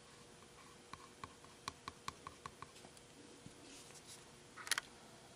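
Faint scratching ticks of a pyrography pen's flat shader tip stroking across wood, about eight short strokes in quick succession, followed near the end by a brief louder clatter.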